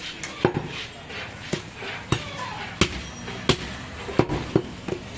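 Butcher's knife chopping through goat meat onto a wooden chopping block: a series of sharp blows, roughly one every half second to second.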